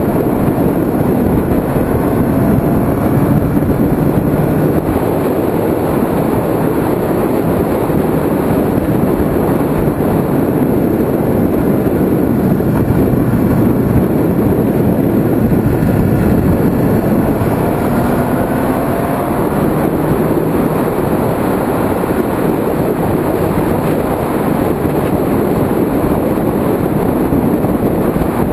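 Kawasaki ZX-6R inline-four sport bike engine running at speed under loud, steady wind rush, heard from a camera mounted on the bike; the engine pitch rises and falls faintly a few times as the throttle changes through the bends.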